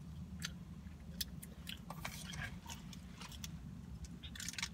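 Close-miked mouth sounds of someone chewing food, a run of short wet clicks and smacks over a steady low hum. Near the end comes a short burst of sipping through a straw.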